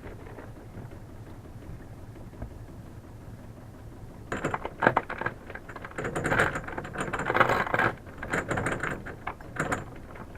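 Low steady hum, then from about four seconds in a run of irregular clinks and clattering, like small hard objects being handled.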